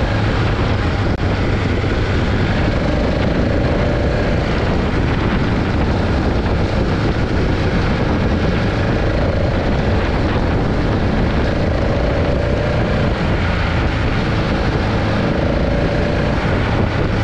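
A following vehicle driving slowly, its engine running steadily under heavy wind noise on the microphone, with a faint wavering whine.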